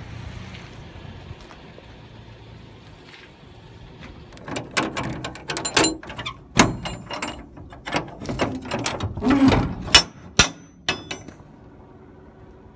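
Metal door and latch hardware being worked: irregular rattling and clanking begin about four seconds in and end with a few sharp clicks.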